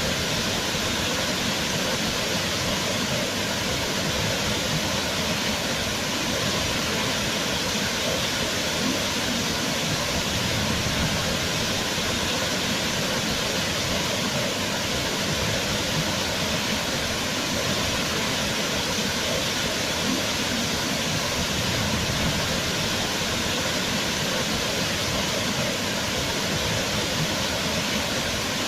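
Waterfall: a steady rush of falling water, constant and even with no pauses or changes.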